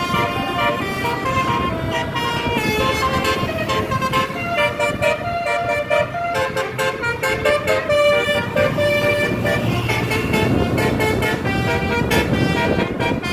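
Tourist bus 'telolet' multi-tone horns playing a melody. Several horn notes sound at once and change pitch in steps, tune-like.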